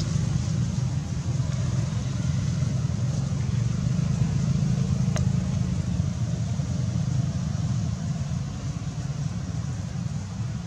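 Steady rumble of motor traffic on a road, with a single small click about five seconds in.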